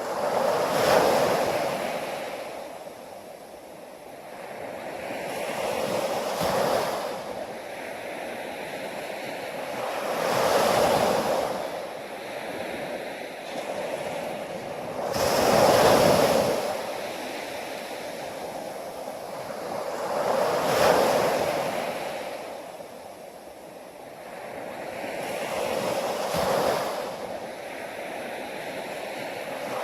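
Ocean waves breaking and washing up on the shore, a surge of surf about every five seconds, six in all.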